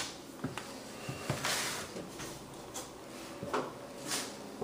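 Footsteps on a hardwood floor: a few scattered soft knocks and brief shuffles as someone walks through a room.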